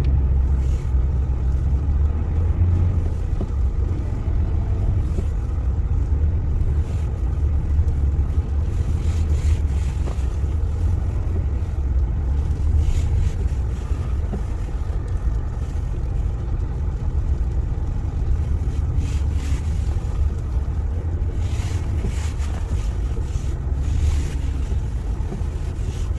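Car driving slowly uphill on snow over black ice, heard inside the cabin: a steady low rumble of the engine and tyres, with the tyres slipping on the ice.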